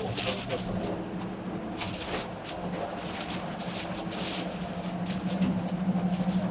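Restaurant kitchen noise: a steady low hum from equipment, with short scraping and rustling sounds at irregular intervals.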